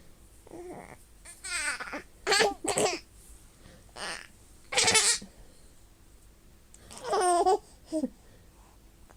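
Nine-month-old baby laughing in several short bursts with pauses between, the loudest about five and seven seconds in.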